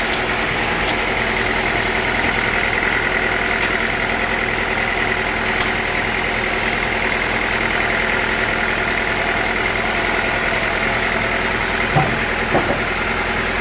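Sawmill machinery running steadily, with a few faint clicks and two knocks near the end.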